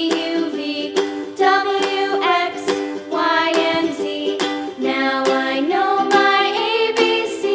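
Upbeat background music: a sung melody over a plucked, strummed accompaniment with a regular beat.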